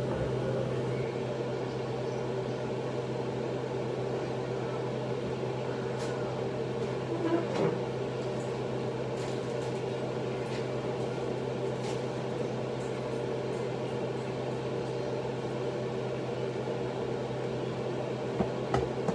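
Kitchen range hood fan running with a steady hum. A few faint knocks come in the middle.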